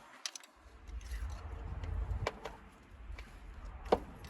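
Steel socket and extension clinking as they are fitted together and worked in the engine bay: a few sharp metallic clicks over a low rumble of handling.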